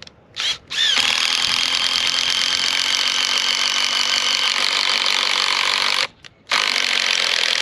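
Power drill with a 3/8 inch wood bit boring a hinge hole into a wet green wooden fence post. A short blip comes first, then the drill spins up with a rising whine and runs steadily for about five seconds, stops briefly, and starts again near the end.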